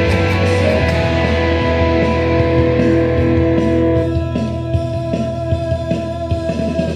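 Electric guitar, a sunburst Stratocaster-style solid-body, playing long sustained lead notes over a steady low bass line.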